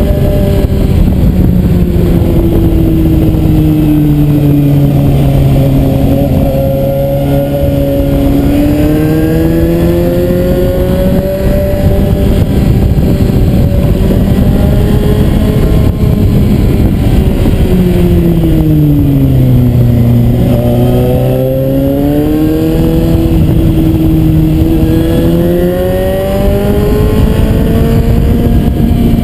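Suzuki GSR 750's inline-four engine pulling along a winding road. The revs drop twice while slowing for bends and climb again on the way out, over a heavy rush of wind.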